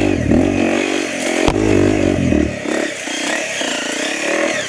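Honda CRF250L's single-cylinder four-stroke engine revving up and down as the dirt bike rides off along a grassy trail. There is one sharp knock about a second and a half in, and the engine drops back to a lower, quieter run about halfway through.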